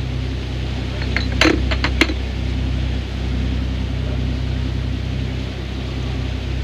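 Boat engine running steadily at trolling speed. A quick run of four or five sharp clicks comes about a second in.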